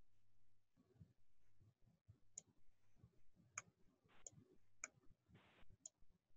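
Faint, sharp clicks of a stylus tapping on a writing tablet, about five of them spread over the second half, against near-silent room tone.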